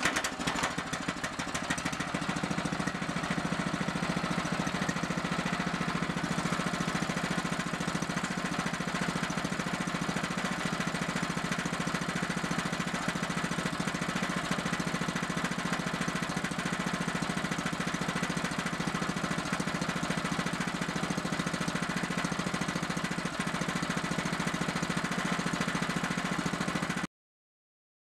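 Small GX-type single-cylinder four-stroke petrol engine running steadily at an even speed. The sound cuts off suddenly near the end.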